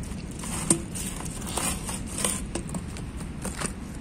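A pit bull-type dog gnawing and biting at the rim of an old rubber car tyre: irregular clicks and scraping, with one sharper click about a second in.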